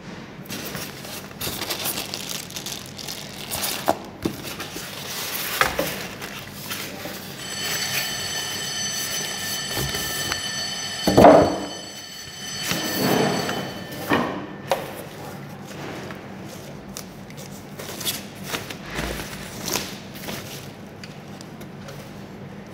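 Plastic packaging rustling and crinkling, with knocks and thuds as the monitor panel and its stand are lifted out of the box and handled. The loudest thud or crinkle comes about eleven seconds in. A high steady whine sounds for several seconds midway.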